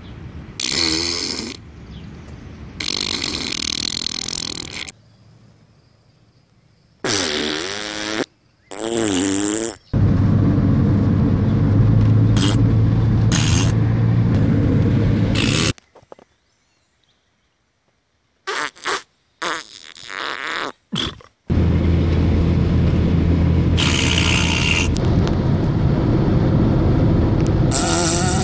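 A string of fart sounds: several short blasts, some with a wobbling pitch, and two long, drawn-out ones, with a near-silent gap of about two seconds in the middle.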